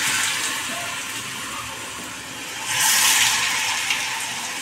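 Potato and buckwheat-flour pakoras deep-frying in hot oil in a small pan: a steady sizzle that swells louder for about a second, about three seconds in.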